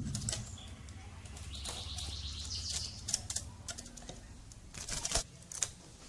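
Irregular clicks and rustling, with a few sharper clicks between about three and five and a half seconds in: a caged Javan pied starling moving and fluttering about its cage.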